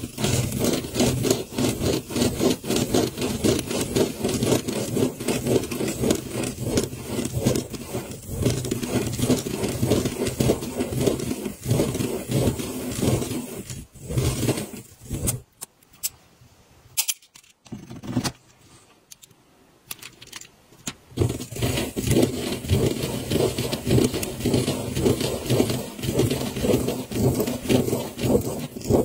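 Plastic Spirograph gear wheel rolling around inside a toothed ring, its teeth clicking rapidly while a pen tip scratches on the paper. The clicking stops for several seconds a little past halfway, then carries on.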